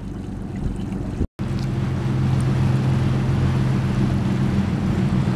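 A boat's engine running steadily under way, with a rush of wind and water over it. It gets louder after a short break about a second in.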